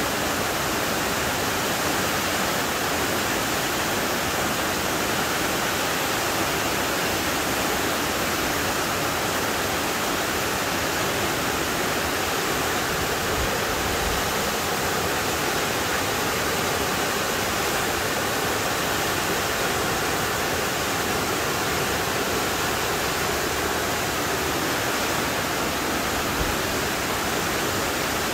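Shequaga Falls, a tall waterfall partly encased in ice, pouring down its rock face: a steady, unbroken rush of falling water.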